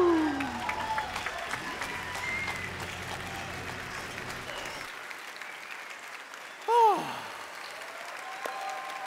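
Audience applauding as a live music and dance number ends. The music's last note slides down and fades in the first half-second, and a single falling shout from the crowd rings out about seven seconds in.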